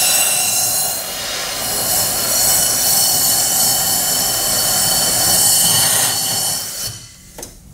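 Compressed-air blow gun blasting steadily into a rag-covered spark plug hole, blowing brake fluid and aluminum shavings out of the cylinder after the stripped thread was re-tapped. The hiss cuts off about seven seconds in.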